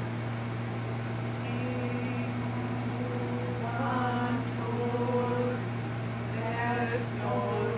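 A woman's voice singing a slow, chant-like melody in long held notes, over a steady low hum.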